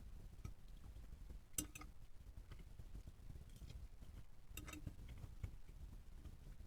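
Cutlery clinking lightly against a dish twice, about three seconds apart, over quiet room tone.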